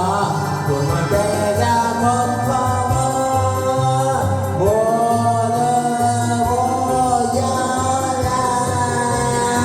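Karaoke accompaniment of a children's cartoon theme song with a voice singing along over a steady bass beat, holding long notes in the second half.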